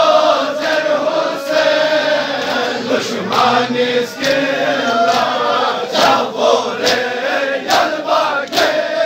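A crowd of men chanting a Balti-language noha, a Shia mourning lament, together, over rhythmic chest-beating slaps (matam) about once or twice a second, the slaps standing out more plainly in the second half.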